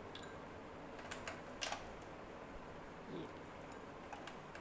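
Ice cubes dropped into glasses of thick jamun sharbat: a few short clicks a little over a second in, the last the loudest, over a faint steady hiss.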